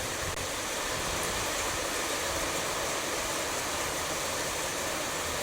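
A car driving in the rain: a steady rushing of tyres on the wet road mixed with engine noise.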